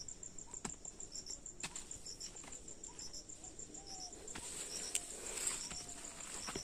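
Insects chirping in a steady, high-pitched, rapidly pulsing trill, with a second chirp repeating every second or so. There are faint scattered footfalls and rustles of people walking through dry undergrowth.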